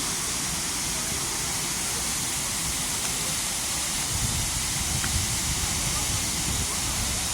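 Waterfall rushing: a steady, even hiss of falling water, with a low rumble coming in from about four seconds in.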